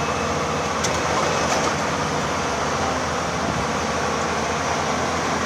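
Excavator's diesel engine running steadily under operation, with a couple of faint ticks about a second in.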